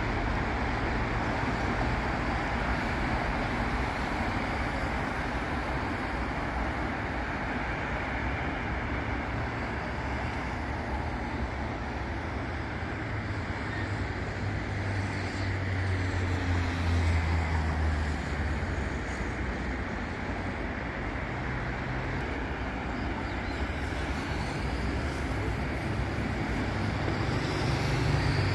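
Traffic on a busy city avenue: cars and buses passing continuously with steady tyre and engine noise. A heavier vehicle's low engine rumble swells about halfway through, and again near the end.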